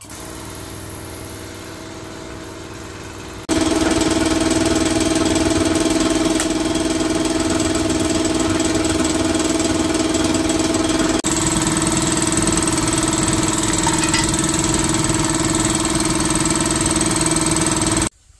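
A motor running steadily at one speed, with a constant hum. It starts abruptly and gets much louder about three and a half seconds in, is briefly interrupted about eleven seconds in, then runs on and cuts off abruptly.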